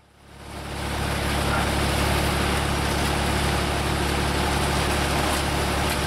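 Tractor engine running steadily under load, driving a hydraulic pan concrete mixer whose paddles churn a batch of wet concrete. The sound fades in over the first second and then holds level.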